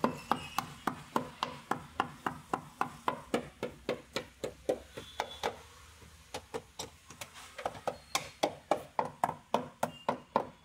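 Hand hacksaw sawing in quick, even strokes, about four a second, briefly weaker just past the middle.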